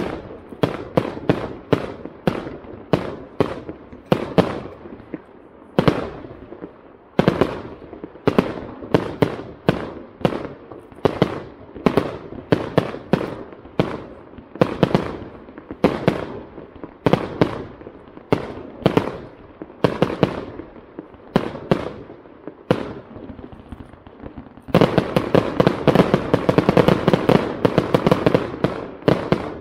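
Aerial fireworks bursting in quick succession, two or three bangs a second. About 25 s in they turn into a dense, rapid barrage of reports.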